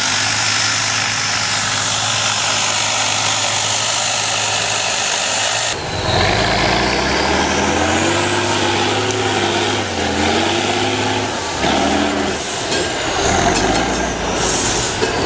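Diesel engine of an off-road trial truck working hard under load, revving up and down as it climbs rough ground. The engine note holds steady at first, changes abruptly about six seconds in, then rises and falls repeatedly.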